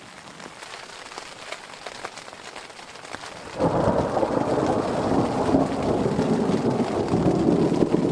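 Light rain with scattered drips, then about three and a half seconds in a long roll of distant thunder starts suddenly and keeps rumbling loudly.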